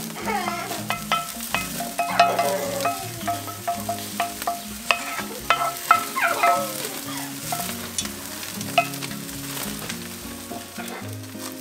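Snoek fillets sizzling on a braai grid over hardwood coals as lemon-garlic butter is spooned on, with frequent sharp pops and spits.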